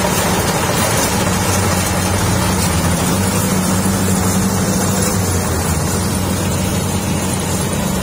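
Kubota DC-60 rice combine harvesters working in the field: a steady diesel engine hum with the even whirr and rattle of the cutting and threshing machinery, at a constant level.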